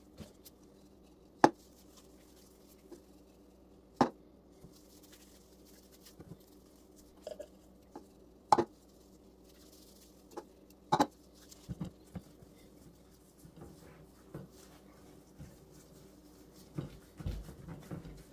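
Gloved hands working cure-coated goose breasts and setting them into a ceramic baking dish: a few sharp knocks and clicks against the dish, spaced a few seconds apart, then soft low thumps near the end as the meat is pressed down into the dish. A faint steady hum runs underneath.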